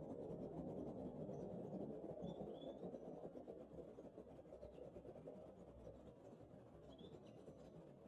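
Faint, steady rough rustling noise, with a few short, high bird chirps about two seconds in and again near the end.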